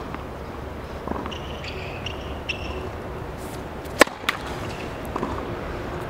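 Tennis serve: a single sharp crack of the racket striking the ball about four seconds in, followed a fraction of a second later by a fainter knock. Before it come a few soft taps of the ball being bounced on the hard court.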